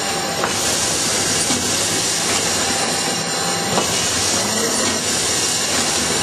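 A packaging machine running as laminate flooring packs are conveyed through it. There is a steady mechanical noise, a loud hiss that sets in about half a second in and stops near the end, and a couple of sharp clicks.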